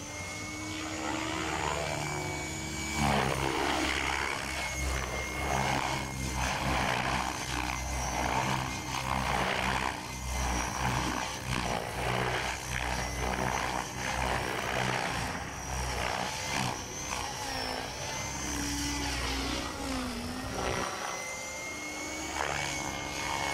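Align T-Rex 600 electric RC helicopter in aerobatic flight: a steady high motor whine, with the rotor blades whooshing in pulses that rise and fall as it manoeuvres.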